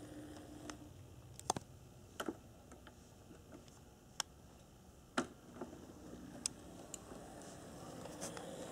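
Scattered sharp clicks at uneven intervals over a faint background hum that fades out about a second in; the loudest clicks come near the start and just past the middle.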